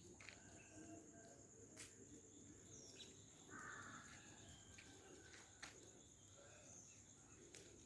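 Near silence: faint outdoor ambience with a steady high-pitched tone throughout and a few scattered light clicks.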